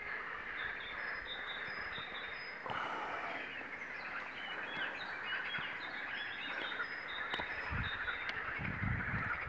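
Birds singing and calling: short high whistled phrases over a steady, dense chorus. The background changes abruptly about three seconds in.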